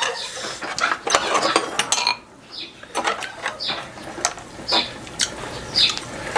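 Spoons and chopsticks clinking and tapping against bowls and dishes while people eat: irregular light clicks, busier in the first couple of seconds, then sparser.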